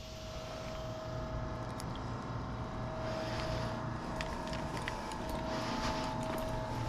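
Steady machinery hum, engine-like, with a low drone and a steady higher whine whose pitch steps up about four seconds in; faint light ticks over it.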